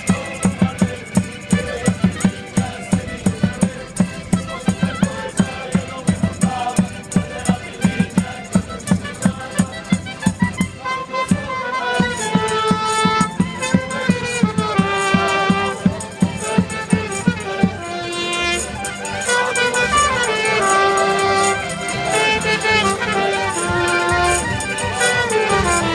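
Portuguese student tuna playing folk music live in the street: acoustic guitars, mandolins, double bass, clarinet and accordion. For the first ten seconds or so the instruments play a brisk strummed beat, then the group starts singing in chorus over them.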